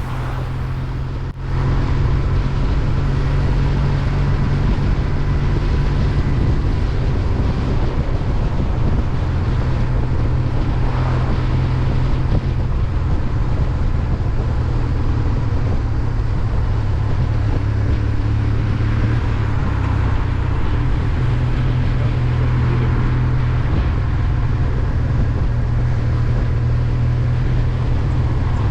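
Motorcycle riding at road speed, heard from a helmet- or bike-mounted GoPro: steady wind noise with a heavy low rumble over the Kawasaki W800's parallel-twin engine. A wind muff over the camera's microphones only partly damps the wind. The sound drops briefly and then settles about a second in.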